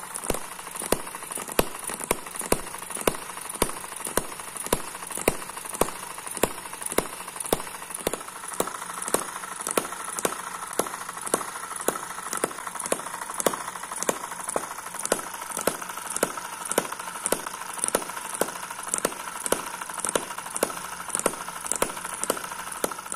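Small model single-cylinder hit-and-miss engine with a flying-ball governor running at low speed. It gives an even beat of sharp clicks, two or three a second, over a steady whine.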